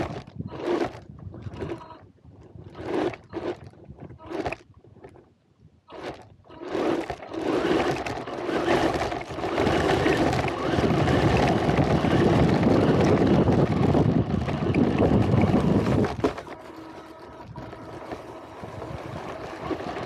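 RC car driving over loose gravel and dirt. In the first few seconds there are short separate bursts of tyre and motor noise. Then comes a long, loud stretch of continuous gravel crunching and motor noise, which drops to quieter rolling a few seconds before the end.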